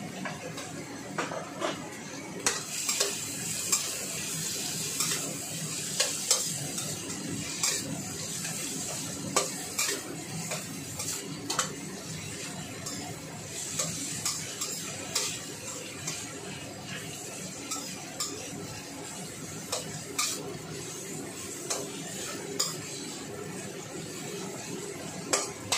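A metal spatula scraping and clanking against a stainless steel wok as julienned vegetables are stir-fried, with irregular sharp clanks over a steady sizzle.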